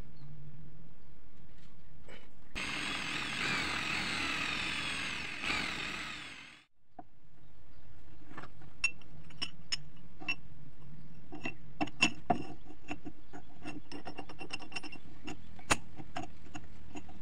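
A drill bit boring through a steel tube: a few seconds of high, wavering whine with many overtones that fades out. Then sharp metallic clicks and taps as the drilled tube and a large steel nut are handled on a wooden table.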